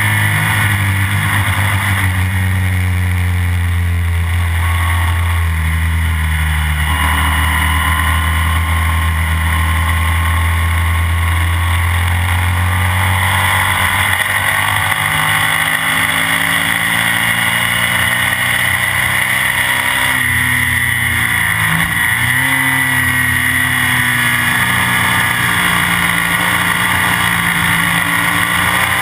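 Classic BMW racing sidecar outfit's engine running hard at speed, heard from the machine itself over a steady rush of wind and road noise. Its pitch steps once about a quarter of the way in, then sags and climbs again about two-thirds of the way through as the outfit slows for a corner and accelerates out.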